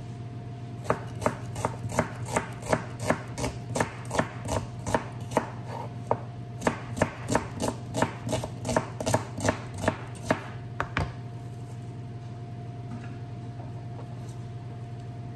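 Kitchen knife slicing a red onion on a plastic cutting board: quick, regular knife strikes on the board, about three a second, with a brief pause midway; the cutting stops a few seconds before the end.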